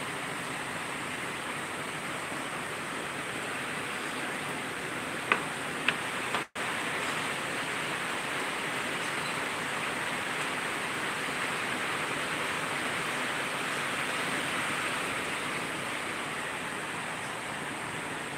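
Heavy tropical-storm rain falling steadily, an even hiss. There are two short clicks about five seconds in, and the sound drops out for a moment just after.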